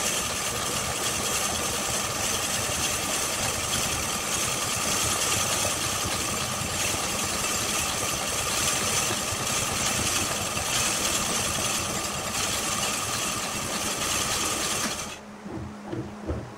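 Electric-motor-driven boring rig running: a spinning steel boring bar cutting into a clamped block of wood, a steady loud grinding noise with a whine. The noise cuts off suddenly about 15 seconds in, leaving a fainter low rhythmic thumping.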